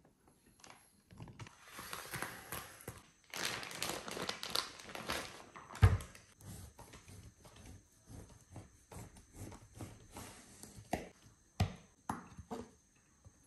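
Plastic wrapping crinkling as a piece of guanciale is unwrapped, then a sharp knock on a wooden cutting board about six seconds in. After that a santoku knife slices through the guanciale, with scattered taps and a couple of louder knocks of the blade on the board.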